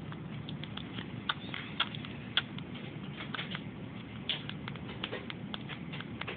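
A premature baby sucking and chewing on a pacifier, making small irregular wet clicks and smacks, a few to several a second, over a low background noise.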